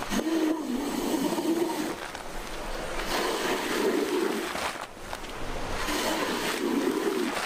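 A rubber squeegee pushed across a soaked, soapy rug, forcing the foamy water ahead of it in about three wet scraping strokes.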